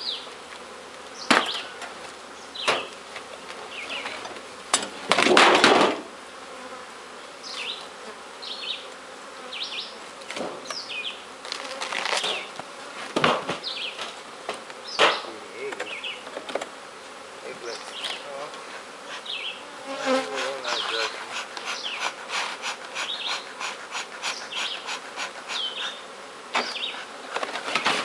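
Honeybees buzzing in a steady swarm around opened hives, with single bees zipping close past the microphone. Scattered knocks and scrapes from wooden hive boxes and frames being handled, the loudest about five seconds in, and a quick run of scraping strokes around twenty seconds in.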